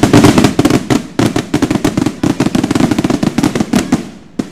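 A string of firecrackers going off in rapid succession, a dense, loud run of bangs that stops about four seconds in, with one last bang just after.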